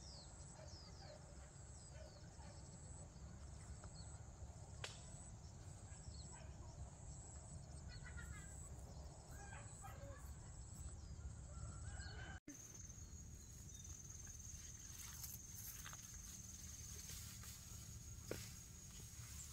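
Faint outdoor ambience with scattered short bird chirps over a low rumble; after a sudden cut about twelve seconds in, a steady high whine runs on.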